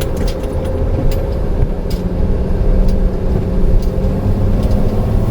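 Steady engine and road drone inside a moving camper van's cab, with a few light clicks scattered through it.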